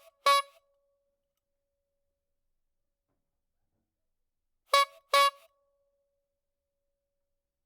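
Clown bulb horn honking: one short honk right at the start, then a quick double honk about five seconds in.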